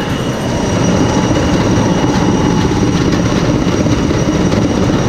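Heavy machinery running steadily: a loud, dense rumble and rattle with no clear rhythm or change.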